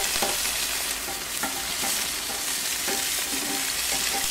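Salad onions sizzling on the hot cast-iron grate of a Weber Q3200 gas grill, a steady hiss, with a few light clicks of metal tongs as the onions are turned over.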